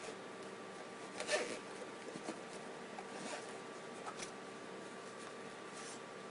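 Zipper on a hard camera case being pulled open in short rasps, the loudest about a second in, with small handling scratches and clicks between them.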